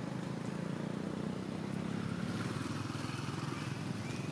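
Steady low drone of a motor engine running in the background.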